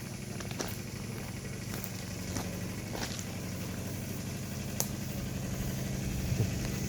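Spider lift's engine running steadily with a low hum that grows slightly louder toward the end, with a few faint clicks over it.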